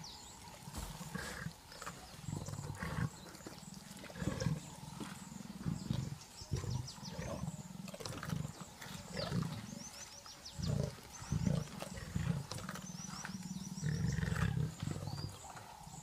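Leopard feeding on a carcass, giving short low growls that come again and again at irregular intervals.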